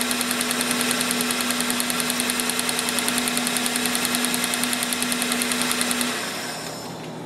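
A 2000 Chevy Prizm's 1.8-litre four-cylinder engine idles with a fast, even ticking. It runs on three cylinders, because cylinder one's injector is disconnected and a compression gauge sits in its plug hole. About six seconds in the engine is switched off and runs down to stillness.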